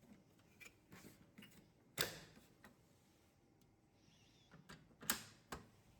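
Faint plastic clicks and taps from the printer's rear plastic cover being fitted and snapped into place. About eight short clicks come irregularly, the loudest about two seconds in and another pair near the end.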